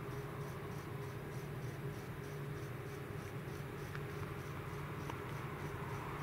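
Quiet trackside background: a steady low hum and a thin steady tone under a faint, even, fast high-pitched chirping.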